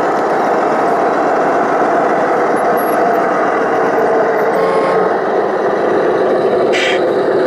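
Scale radio-controlled MAZ-537 8x8 tractor truck driving slowly with a loaded lowboy trailer, a steady heavy truck-engine sound running throughout. A brief hiss comes about seven seconds in.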